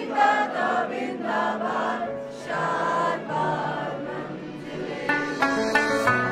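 A group of voices singing a song together. About five seconds in, plucked string notes join.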